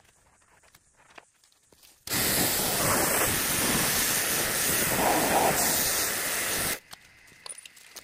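Small Kärcher pressure washer's water jet spraying onto an aluminium boat trailer frame, rinsing it down. A steady loud hiss starts about two seconds in and cuts off abruptly a little under five seconds later as the trigger is released.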